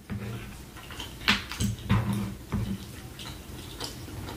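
Close-miked chewing of French fries: wet mouth smacks and a few sharp clicks, most of them between about one and two and a half seconds in.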